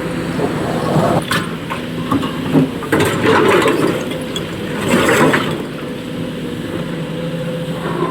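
Diesel excavator engine running steadily at a quarry, with loud bursts of clattering about 1, 3 and 5 seconds in, typical of stone being loaded into a tipper truck.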